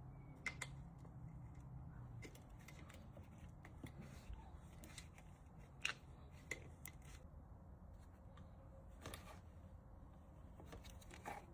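Faint, scattered metallic clicks and taps of an Allen key working the bolts on a dirt bike's chain guide while they are loosened; the sharpest clicks come about half a second, six seconds and nine seconds in.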